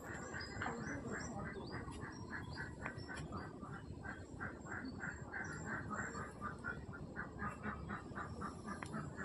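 Ducks quacking in a steady chorus of short calls, several a second.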